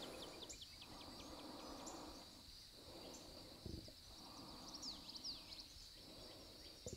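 Near silence: a person's slow, soft breaths while holding a yoga pose, with faint high bird chirps in the background.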